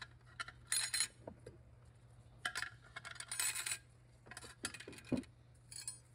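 Light metallic clinks and short rattles, a handful of separate ones, as clutch plates for the low-reverse clutch pack of a Subaru 5EAT automatic transmission are set down one on another inside the aluminium case.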